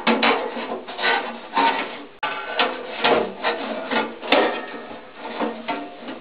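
Sheet-metal casing of an old e.l.m. leblanc GLM 5 wall boiler being handled, scraping, rubbing and knocking in irregular bursts about twice a second. There is a sharp click about four seconds in.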